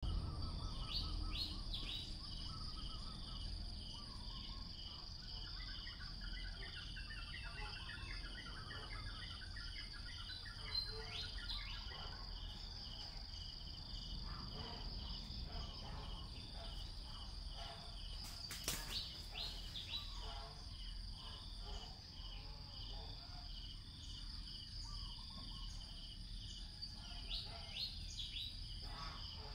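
Insects trilling steadily, a continuous high buzz under a regularly repeating pulsed chirp, with scattered bird chirps and a few short clicks.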